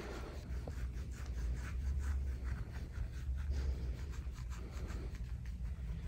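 Gua sha scraping tool stroked quickly and repeatedly across oiled skin on a back, a soft, rhythmic scraping rub of several strokes a second.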